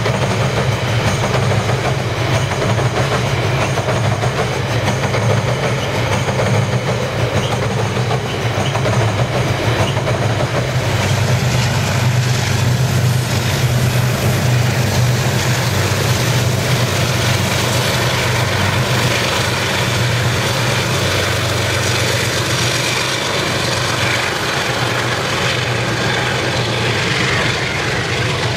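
A long coal train of covered hopper wagons rolling over a bridge, wheels clacking over the rail joints, over a steady low diesel locomotive drone. The train has banking locomotives attached to help push it up the grade.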